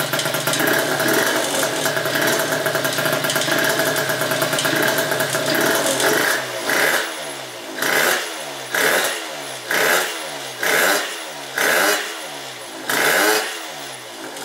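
A 72cc Polini-kitted Honda Elite two-stroke scooter engine with a prototype S23 expansion-chamber pipe, running on its stand: it idles for about six seconds, then is blipped about eight times, roughly once a second, each rev rising and falling back. The pipe's slip joint has a bad exhaust leak.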